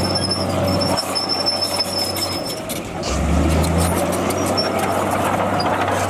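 Heavy diesel earthmoving machinery running. The low engine drone eases off about a second in and picks back up about three seconds in, with a high steady whine over the first couple of seconds.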